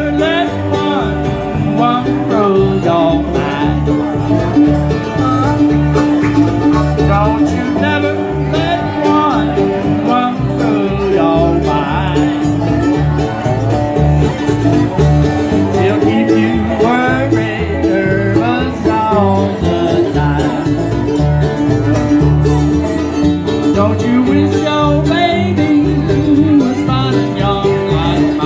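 Small acoustic blues band playing live: strummed acoustic guitar and dobro over a walking upright bass, with a man singing at times.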